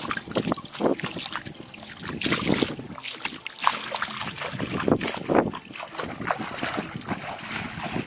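Footsteps splashing and sloshing through shallow running water, in irregular strokes a few times a second.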